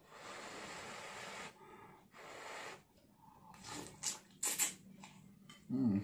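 Instant noodles being slurped from a bowl of broth: long noisy slurps, then sharper, quicker sucking slurps about four seconds in. A short low hum comes near the end.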